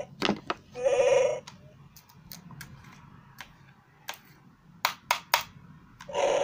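Electronic Chewbacca mask playing its recorded Wookiee roar, set off by the wearer opening the mask's mouth: one short growling call about a second in and another starting near the end. Scattered sharp clicks in between.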